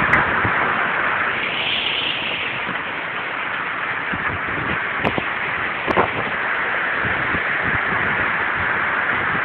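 Steady rushing wind of a thunderstorm, with two short clicks about five and six seconds in.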